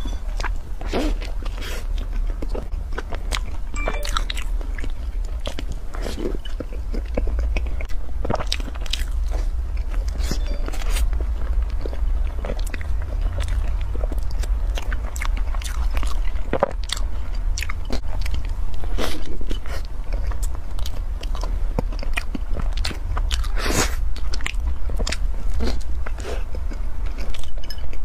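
Close-miked eating: chewing and biting into a floss-coated, cream-filled bun, heard as many small irregular crunches and wet mouth clicks, with a sharper crunch near the end.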